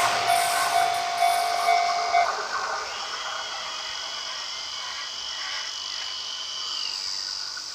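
Japanese level-crossing warning bell ringing in a pulsing tone while a train runs over the crossing. The bell stops about two seconds in, and the train's rolling noise fades. A high steady whine follows from about three seconds in and dips in pitch near seven seconds.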